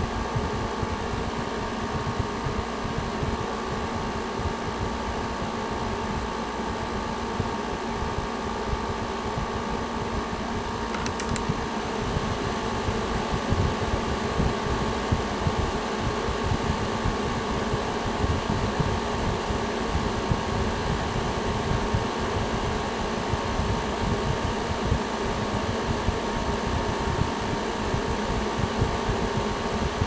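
2011 Frigidaire FRA052XT7 5,000 BTU window air conditioner running: a steady hum of its fan and airflow with a few steady tones. A brief faint tick comes about eleven seconds in.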